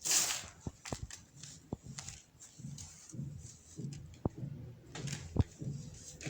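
Compressed baking soda crumbling as it is crushed: a loud powdery crunch at the start, then scattered sharp crackles and soft crumbling.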